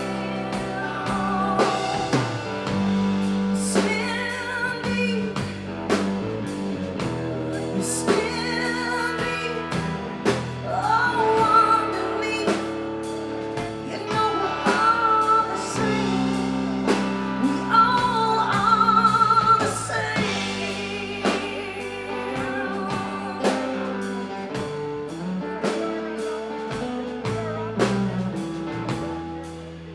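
Live blues band: a woman singing lead with a wavering vibrato over electric guitar and a drum kit keeping a steady beat.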